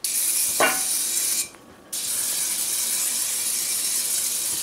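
Aerosol can of cooking spray hissing in two long bursts with a short break between, the can nearly empty.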